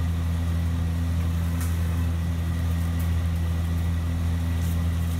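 Steady low machine drone from a running motor or engine, even in pitch and level throughout, with a few faint light clicks over it.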